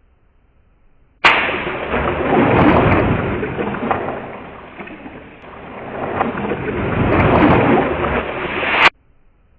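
A loud rushing noise that starts abruptly with a click, swells, dips in the middle and swells again, then cuts off suddenly after about seven and a half seconds.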